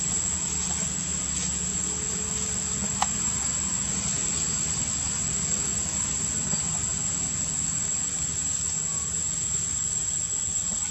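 Steady high insect drone over a low steady rumble, with a single sharp click about three seconds in.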